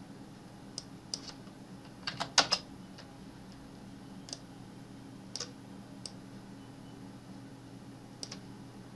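Computer keyboard keys and mouse clicks as values are entered into a program's fields. A quick run of several keystrokes comes about two seconds in and is the loudest part; single clicks follow every second or so. A faint steady hum runs underneath.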